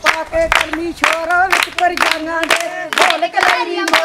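A group of women singing together to steady rhythmic hand-clapping, about three claps a second.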